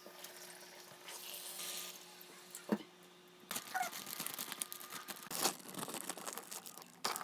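Faint crinkling and rustling of plastic being handled, with scattered clicks and taps, denser in the second half.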